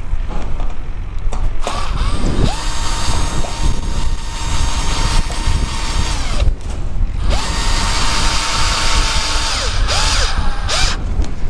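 Cordless drill-driver driving ordinary wood screws through corrugated galvanised steel sheet into a timber board. The motor spins up to a steady whine for about four seconds, stops, runs again for a couple of seconds, and gives one short final burst near the end.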